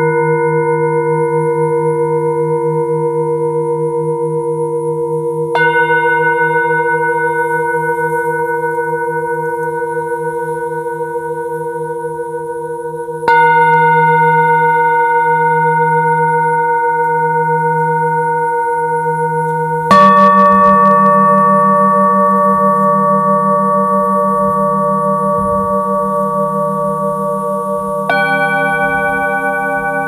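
Himalayan singing bowls struck one after another, four strikes about seven seconds apart, each note ringing on and overlapping the last with a slowly wavering low hum. The third strike is the loudest and sounds a different, deeper bowl.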